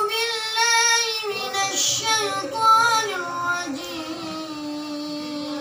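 A boy reciting the Qur'an in a melodic murottal style, his voice gliding up and down through ornamented phrases and ending on a long held note.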